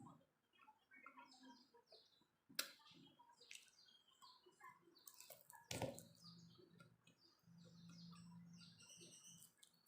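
Faint close-miked eating sounds from someone eating French fries: soft chewing with many small wet mouth clicks and smacks, and two sharper clicks. A faint low steady hum runs through the second half.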